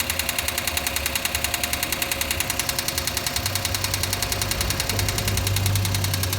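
Car engine idling with a steady, rapid knock repeating in time with the engine, the knocking noise of a failing engine that the owner suspects comes from a worn bearing.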